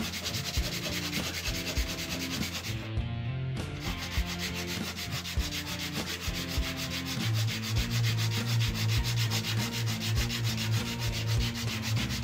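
A small wooden mechanism part rubbed by hand back and forth on a sheet of sandpaper, in a quick, even rhythm of strokes with a short pause about three seconds in. The part is being sanded down so it has clearance to move freely.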